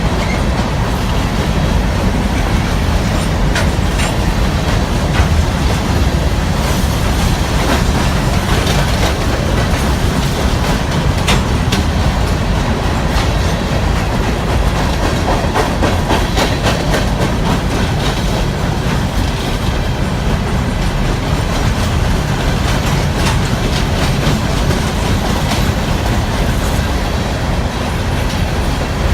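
Freight cars of a CSX rock train rolling past, with a steady heavy rumble and repeated clicks as the wheels clack over rail joints.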